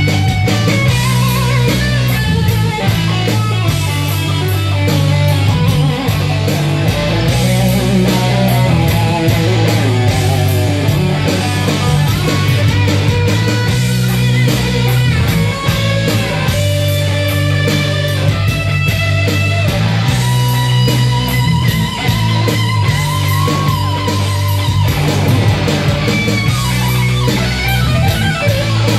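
Live electric guitar playing a melodic instrumental lead, with long held notes that waver and bend, over a loud steady bass line and a regular drum beat.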